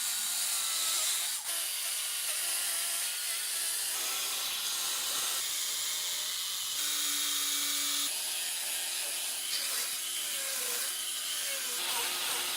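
Chainsaw cutting into wood, a steady hissing rasp whose pitch wavers. It changes abruptly several times, as at cuts between short shots.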